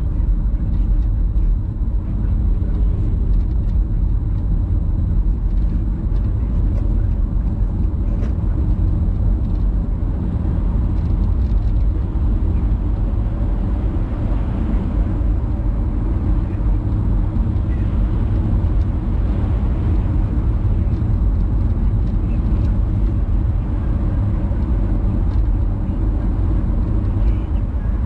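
Steady low rumble of a vehicle in motion, even and unbroken.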